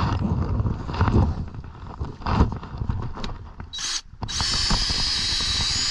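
Cordless DeWalt drill boring into a wooden deck joist. It starts with a short trigger pull and then runs steadily from about four seconds in. Before that there are irregular knocks and clicks as the drill and bit are handled and set against the wood.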